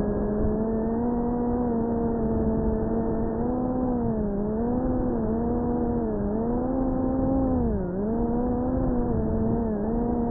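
Brushless motors and propellers of a 3-inch cinewhoop drone on a 4S battery buzzing in flight, heard through the onboard camera. A steady pitched hum whose pitch dips and climbs back about five times as the throttle is eased and reapplied, the deepest dip past the middle.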